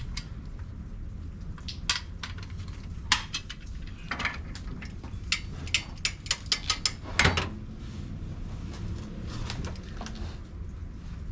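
Metal clinks and clicks of a torque wrench and socket on steel nuts as they are torqued down to 125 newton metres. A quick run of ratchet-like clicks comes about six to seven seconds in.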